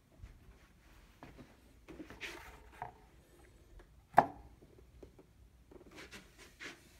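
Handling noises of a vinyl LP being set on a turntable's platter: light rustles and soft knocks, with one sharp clack about four seconds in.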